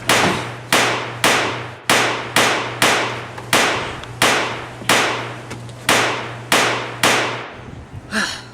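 A rapid series of about a dozen loud, sharp bangs, roughly two a second, each ringing off before the next.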